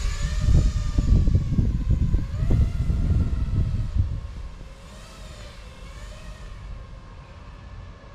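FPV racing drone's motors and propellers whining, the pitch rising and falling with throttle changes. A heavy low gusty rumble rides on top for about four seconds, then the whole sound drops to a fainter level.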